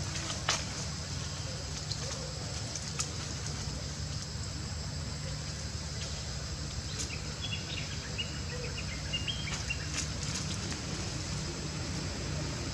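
Outdoor background: a steady low hum with a constant high hiss, a few faint clicks, and a run of short high chirping calls about seven to nine seconds in.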